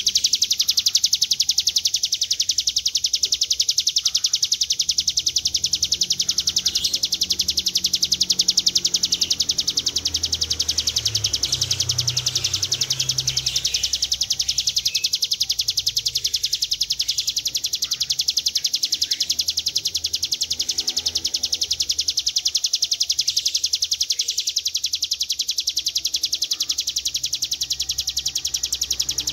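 Hill prinia (ciblek gunung) singing one long, unbroken, very fast high-pitched trill, the 'ngebren' song that is played as a tutor recording for cage birds.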